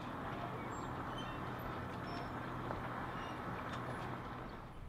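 Steady background noise with a faint low hum, fading in just before and easing off near the end.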